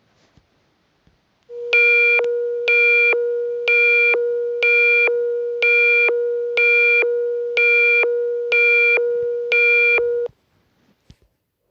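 Electronic alert tone of a mock Emergency Alert System broadcast: a steady low tone with a higher beep pulsing over it about once a second, nine times. It starts about a second and a half in and cuts off after about nine seconds.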